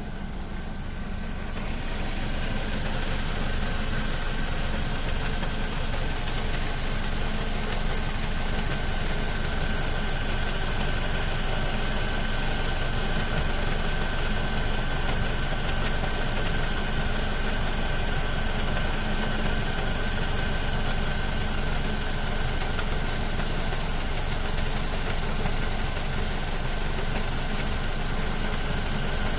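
Ford Focus mk2 2.0 Duratec four-cylinder engine idling with a steady rattle from the clutch and MTX-75 gearbox side; the sound grows louder about a second and a half in, then holds steady. The rattle goes away when the clutch pedal is pressed and remains after a complete clutch replacement, and the owner has ruled out the flywheel and release bearing.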